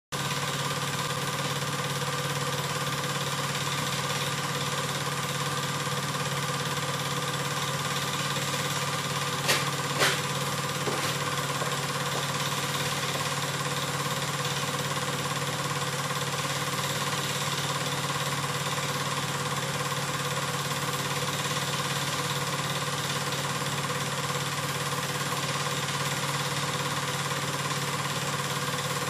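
8mm cine projector running: a steady mechanical whirr and hum, with two sharp clicks about ten seconds in.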